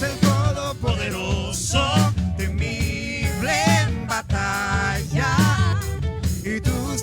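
Worship band playing a song, with a steady drum-and-bass beat under a wavering, sustained lead melody.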